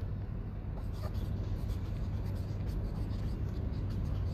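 Felt-tip marker scratching on paper on a clipboard as letters are written out, in short irregular strokes over a steady low hum.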